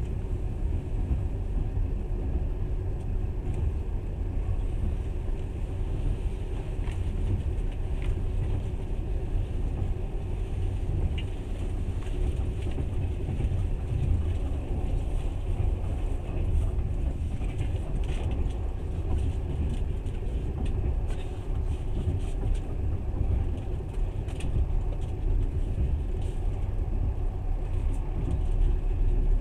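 Passenger train running along the line, heard from inside the carriage: a steady low rumble of wheels on rails with occasional faint clicks.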